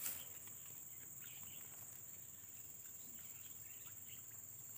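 Steady high-pitched drone of insects over quiet swamp ambience, with a few faint ticks.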